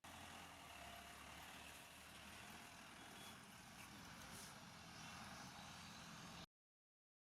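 Faint background traffic: a steady low rumble of vehicle engines, which cuts off suddenly near the end.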